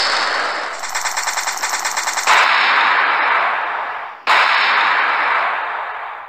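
Dubbed-in battle sound effects: a loud blast at the start as the mortar fires, a rapid machine-gun burst of about ten shots a second lasting about a second and a half, then two more explosions, each dying away over a couple of seconds.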